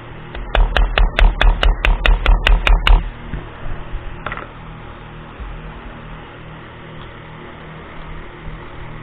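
Hammer tapping a pin punch to drive a roll pin out of an Ekol Tisa pistol: about a dozen quick, sharp metal taps over two and a half seconds, then one lighter click.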